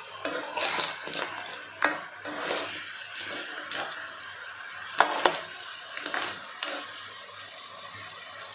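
Whole small crabs being stir-fried in a wok: hard shells and utensil clattering against the pan in sharp knocks, the loudest two close together about five seconds in, over a faint frying sizzle.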